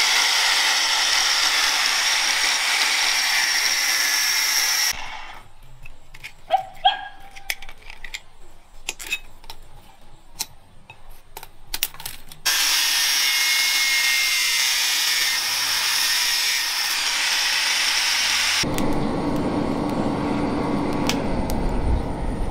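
Angle grinder with a thin cutting disc running steadily as it cuts through a rusty steel ball bearing, in two long runs. Between them come scattered metal clinks and knocks as the bearing's parts are handled. Near the end a lower, steady rumble takes over, fitting the coal forge's fire.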